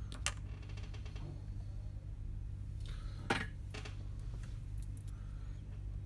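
Two light clicks of small tools or parts being handled on a workbench, the second and louder about three seconds in, over a steady low hum.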